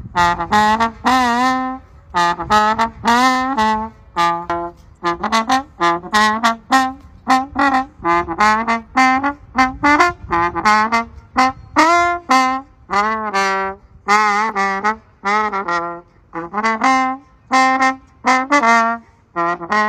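Solo trombone playing a melody in phrases of separate notes, the held notes with a wavy vibrato, with short breaks for breath between phrases.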